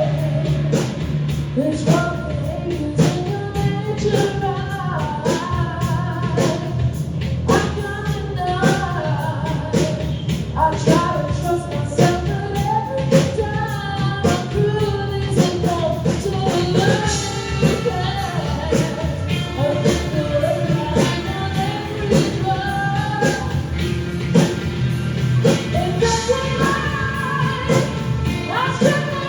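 Live rock band playing a song, a voice singing over a steady drum beat.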